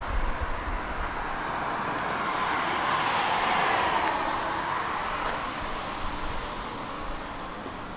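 A road vehicle passing by: its tyre and engine noise swells to a peak about three and a half seconds in, then fades away.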